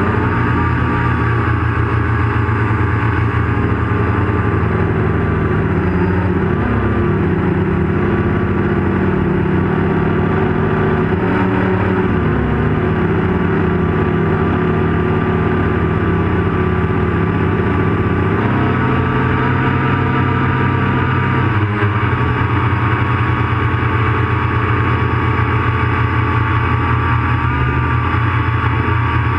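Turnigy HAL quadcopter's electric motors and propellers buzzing steadily in flight, with several steady tones whose pitch drifts slightly as the throttle changes and shifts noticeably about two-thirds of the way through.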